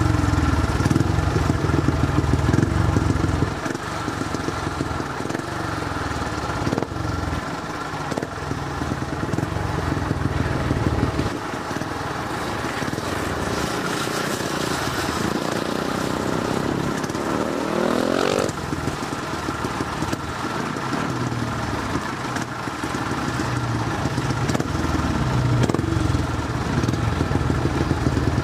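350cc speedway motorcycle engine running as the bike laps a dirt oval, the engine note rising and falling through the turns. Its pitch climbs steeply in the middle as the bike drives close by and then cuts off abruptly. Wind buffets the microphone.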